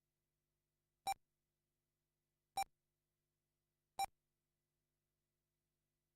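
Three short, identical electronic beeps about a second and a half apart from an RC race lap-counting system, each one a car crossing the timing line.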